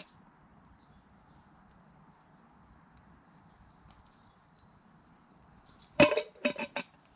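Faint high bird chirps, a few of them with falling pitch, over a quiet outdoor background. About six seconds in come three or four loud, sharp knocks with a short ringing note, as camp gear is handled.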